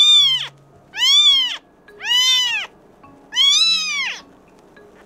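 Very young kitten meowing: four high, arching cries in a row, each rising then falling in pitch, about a second apart.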